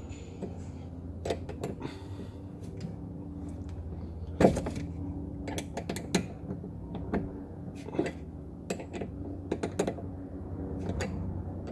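Scattered clicks and knocks of a Torx T50 key working on a car's seat-belt anchor bolt to loosen it, with one louder knock about four seconds in. A steady low hum runs underneath.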